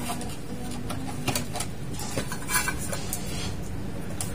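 Scattered light clicks and rustling of wires and plastic connectors being handled and plugged together on an inverter air-conditioner's circuit boards.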